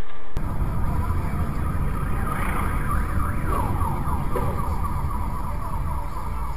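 Low, steady rumble of a vehicle on the road, starting abruptly a moment in. For a few seconds in the middle it is joined by high wavering tones, like a siren or squealing tyres.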